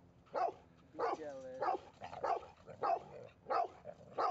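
A dog barking repeatedly in play, about seven sharp barks at roughly even spacing, with one drawn-out whining note after the bark about a second in.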